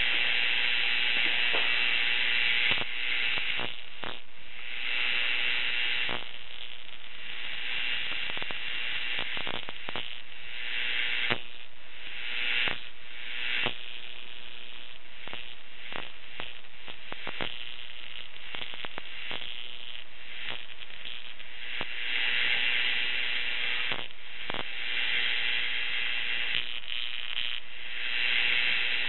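Violet wand running with the MJOLNIR #2 glass electrode: a steady electrical hiss with fast, irregular crackling of sparks, growing louder in several stretches.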